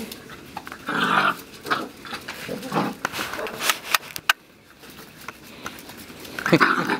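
Two puppies playing, making short growls and yips in several bursts, with a brief lull about four seconds in.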